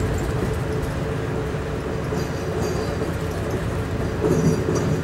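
Steady rumble and rush of a moving passenger train heard from inside an Amtrak coach as an opposing Amtrak train passes close alongside on the next track, with a louder surge a little over four seconds in.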